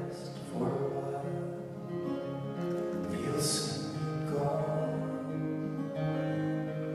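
Live folk band playing a slow song: strummed acoustic guitars with held notes from accordion and cello, and a male voice singing over them, caught by a phone's microphone in a hall.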